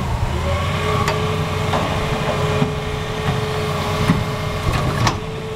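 Diesel engine of a Hitachi Zaxis 350 hydraulic excavator running under load as it swings its arm, a steady drone with a steady whine through it. A few sharp clicks sound over it.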